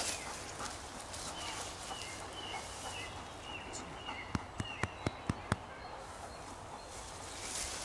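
Small birds chirping faintly in the background, then six sharp clicks in quick succession, about a quarter second apart, starting about four seconds in.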